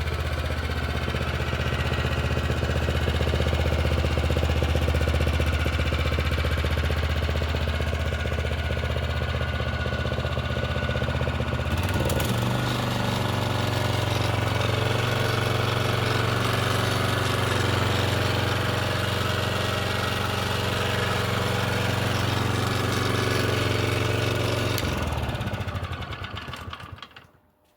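Kawasaki engine of an Etesia Pro 46 walk-behind mower running steadily; its note changes about twelve seconds in, and near the end it shuts off and dies away to near silence.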